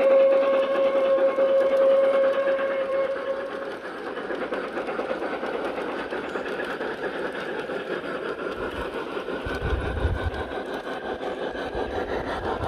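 G-scale garden railway train: the model locomotive's whistle holds one steady note, then stops about three and a half seconds in. The train then rolls on with a rapid clatter of wheels ticking over the track.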